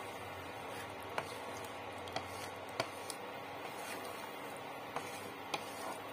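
A spatula stirring a thick, watery vegetable mash in a nonstick pan, clicking sharply against the pan several times over a steady low hiss.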